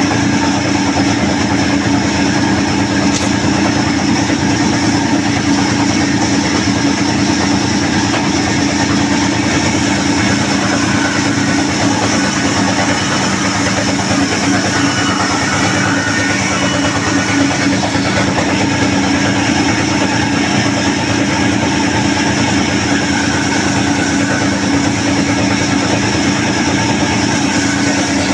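Sawmill machinery running with a steady, loud, unbroken hum.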